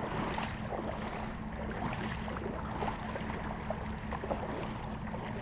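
Steady rushing of a shallow, rocky stream, with a low rumble of wind on the microphone and a few faint ticks.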